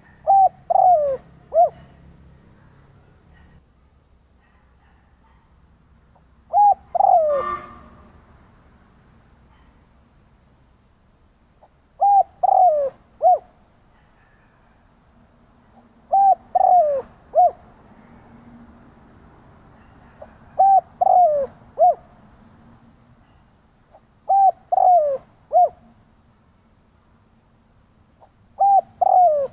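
Spotted dove cooing its three-note call, the first two notes close together and the third a little apart. The phrase repeats seven times, about every four seconds.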